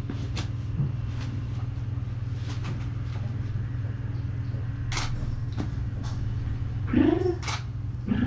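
Phone camera shutter clicks: a few sharp clicks, the loudest about five and seven and a half seconds in, over a steady low rumble. A brief rising-and-falling vocal sound comes about seven seconds in.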